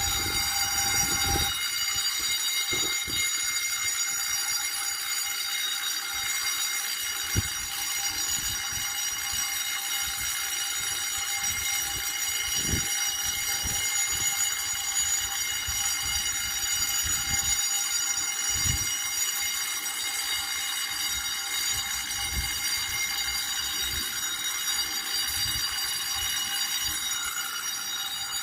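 A building fire alarm sounding continuously: one steady buzzing tone with many overtones, without a break.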